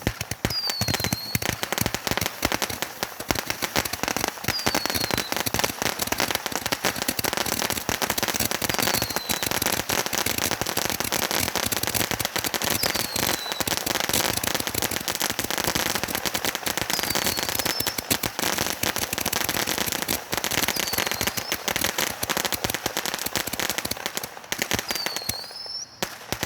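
Fireworks crackling: a dense, continuous run of rapid pops and crackles that thins out and fades just before the end. A short high chirp recurs about every four seconds.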